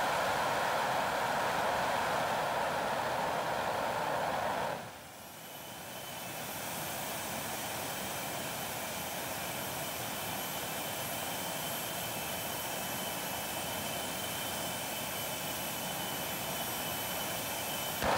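Homemade gas-turbine jet engine running with its afterburner lit, a loud rushing roar. About five seconds in, the afterburner cuts out and the sound drops sharply, leaving the turbine running on with a steady high whine that slowly grows louder. The loud rush comes back right at the end.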